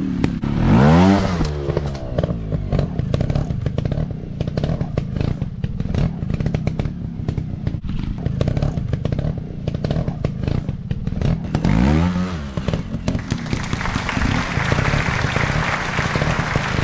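Dirt-bike engines revving up and back down twice, about a second in and again around twelve seconds, over a lot of clatter and knocking.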